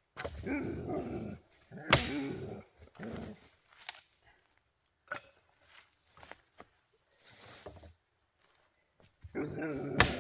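A dog vocalizing in several short bouts of grumbling and whining, with a few sharp snaps in between.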